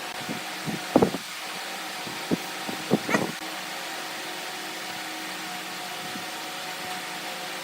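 Steady mechanical hum, like a motor or fan running, with a few short knocks in the first three and a half seconds.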